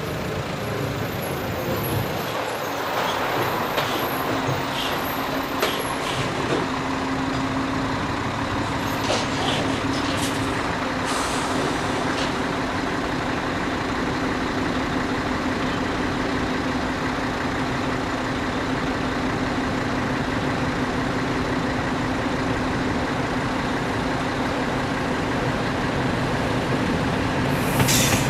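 Mariazellerbahn narrow-gauge electric train running, heard from on board: a steady running rumble with a steady hum that sets in about three seconds in, and a handful of short clicks and brief high squeals in the first dozen seconds.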